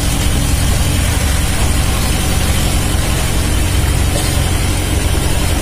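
Vehicle engine and road noise heard from on board, a steady low rumble.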